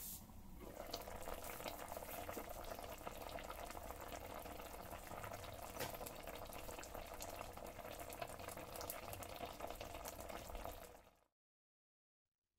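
Pot of milkfish sinigang in guava broth bubbling at a simmer, a steady bubbling with many small pops. It fades out near the end.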